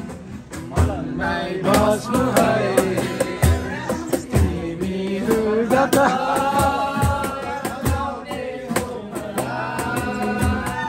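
Acoustic guitar strummed in a steady rhythm while young men sing a song along with it.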